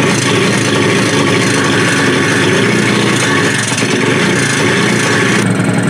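Honda CT90's small single-cylinder four-stroke engine running steadily with its copper washer replaced, sounding a lot better.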